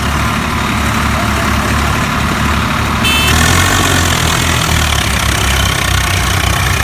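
Tractor engine idling with a steady low throb; a brief high tone sounds about three seconds in.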